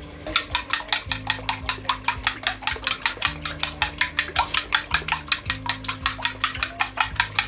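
Metal spoon beating raw eggs in a ceramic bowl: a quick, even run of clinks against the bowl, about six strokes a second.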